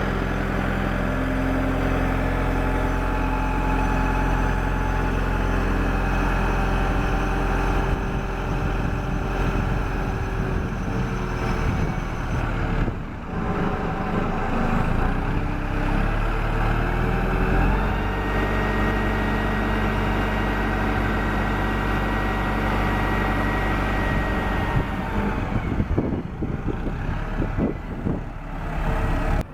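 SkyTrak 10054 telehandler's diesel engine running steadily under load while it lifts a garbage bin; the engine note shifts in pitch about halfway through and again later, then eases off with a few knocks and clunks near the end.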